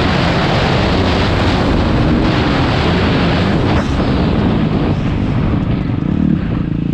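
Motocross bike engine running, heard through heavy wind noise on the microphone.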